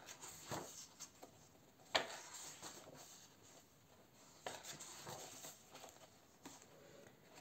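Paper pages of a softcover colouring book being turned by hand: soft swishes and rustles of paper, several times, with a sharper one about two seconds in.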